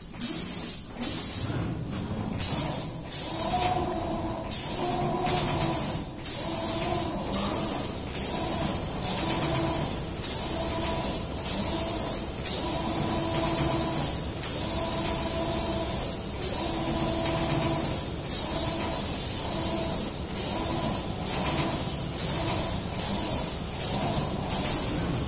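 Automatic spray gun of a CNC spraying machine spraying in passes: a loud high hiss that cuts off for a moment at the end of each pass and starts again with a sharp burst, every half second to two seconds. A humming tone comes and goes underneath.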